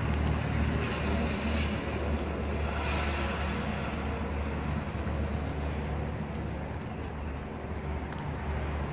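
A steady low rumble of background noise, with a few faint soft crackles near the start from a fresh galangal leaf being folded by hand.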